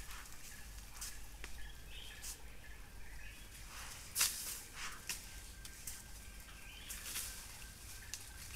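Dry leaf litter crackling and rustling in scattered short bursts as an Asian elephant stands and shifts its weight close by, the sharpest crackle about four seconds in, over a steady low hum. Faint bird calls come through in the background.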